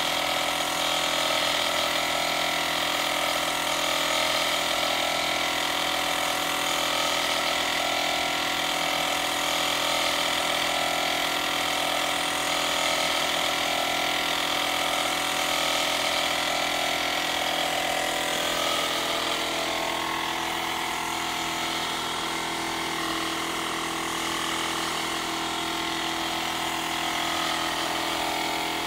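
Air compressor running steadily, supplying a spray-painting job, with a broad hiss over its motor hum. It becomes a little quieter about two-thirds of the way through.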